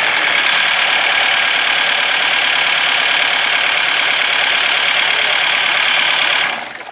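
Diesel engine with a Bosch injection pump running after start-up, a loud, harsh, steady noise that dies away near the end. The mechanic calls it a somewhat annoying noise and blames it on a fault, which he goes on to correct by adjusting the injection pump timing.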